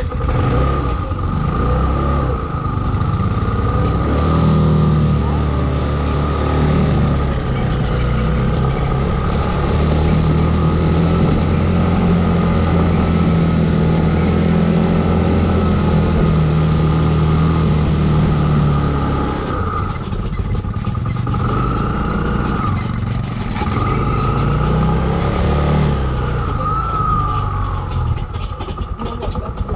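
Motorcycle engine pulling up a steep climb, held at steady revs for much of the time, then easing and changing pitch about twenty seconds in before pulling again.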